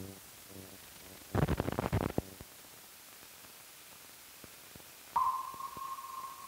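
Old optical film soundtrack at the end of a reel: the last faint notes of the closing music die out, then a dense burst of crackling pops and clicks about a second and a half in, over a steady hiss. A steady high beep starts about five seconds in.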